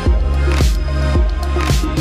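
Background music with a steady beat, about two beats a second, over a deep sustained bass.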